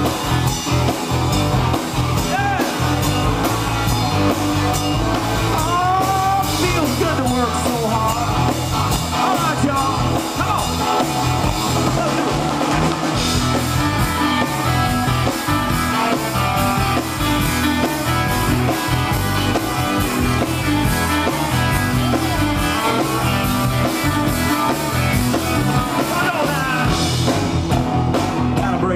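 Live rock band playing loudly: electric guitars, bass guitar and drum kit keeping a steady beat.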